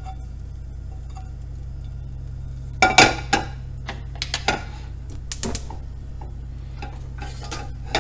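Metal utensil clinking and scraping against a frying pan while grease is taken out of it, in several groups of short knocks, the loudest about three seconds in. A steady low hum runs underneath.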